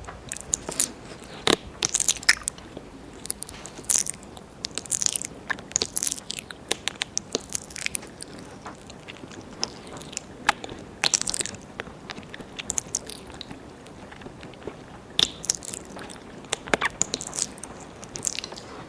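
Wet mouth sounds close to a binaural microphone's ear: tongue licks, lip smacks and clicks coming in irregular clusters, made in ear-licking ASMR.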